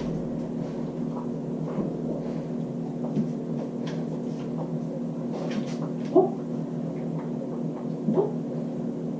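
A dog moving about, with faint clicks and taps, over a steady low hum.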